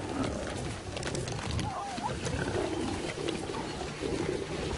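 Lions feeding at a kill: wet tearing and chewing of meat and bone, with many short sharp clicks, and low growls swelling about four seconds in.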